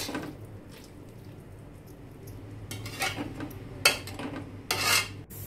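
Metal spatula scraping and stirring potatoes through thick masala paste in a metal kadai: scrapes at the start, a quieter stretch, then more strokes in the second half with a sharp clink against the pan about four seconds in.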